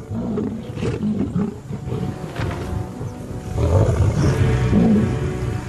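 Lions growling while defending their kill against Cape buffalo, the growls loudest from about three and a half seconds in, over background music.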